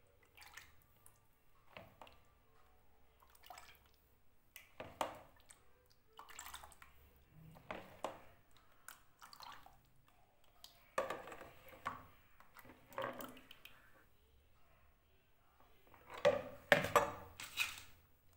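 Liquid lemon concentrate being ladled with a metal ladle into a plastic storage box: repeated pours and splashes with the ladle knocking and scraping against the plastic, in irregular bursts that get louder near the end.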